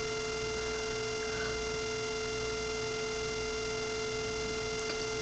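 Steady electrical hum: one constant tone with fainter higher tones above it over a light hiss, unchanging throughout, with no other sound.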